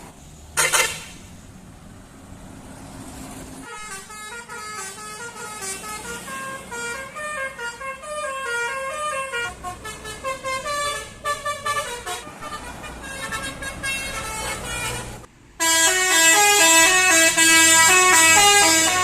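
Tour bus 'telolet basuri' melody horn playing. A brief blast comes about a second in, then from about four seconds a tune of quick stepping notes. The tune breaks off around fifteen seconds and starts again louder just after.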